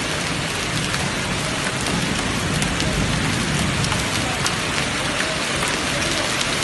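Heavy rain falling steadily and splashing on the paving, with the odd close raindrop ticking.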